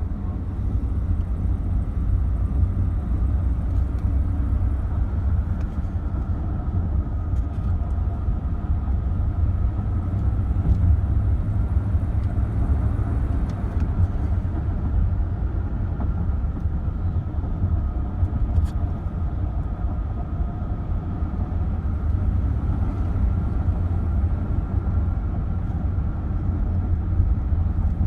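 Inside the cab of a 2016 GMC Sierra with the 5.3-litre V8 while driving: steady low engine and road rumble, with a faint, intermittent chatter/tick from the driver-side footwell that comes with pressing the gas pedal. The cause is unknown; it is a known issue on GM half-ton trucks.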